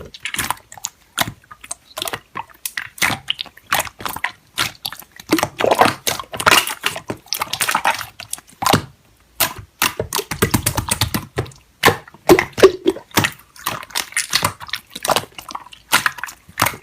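Hands working slime, squeezing and poking it, making irregular sticky clicks and pops.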